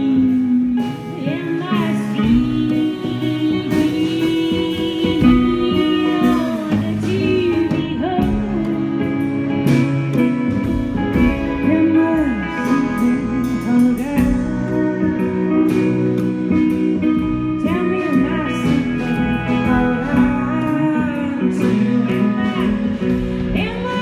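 Live music from a duo: a hollow-body electric guitar and a plucked upright double bass play together while a woman sings.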